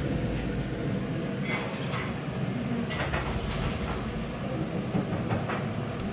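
Steady low rumble of a busy food stall with a few short clinks of bowls and utensils scattered through it.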